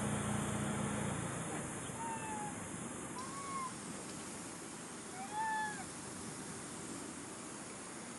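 A few short coo calls from macaques, each rising then falling in pitch, at about two, three and five and a half seconds in; the last is the loudest. A low hum fades out about a second in, over a steady background hiss.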